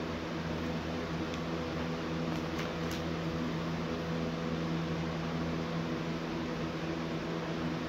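Steady machine hum with several fixed tones over a hiss. A few faint clicks from Lego pieces being handled come between about one and three seconds in.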